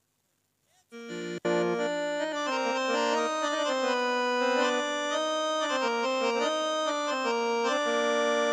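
After about a second of near silence, keyboard music with an organ-like sound starts with a click. It plays a melody over held chords and carries on steadily.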